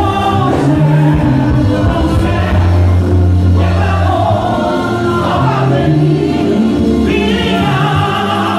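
A woman singing a gospel song into a microphone over amplified instrumental backing with a heavy, sustained bass line.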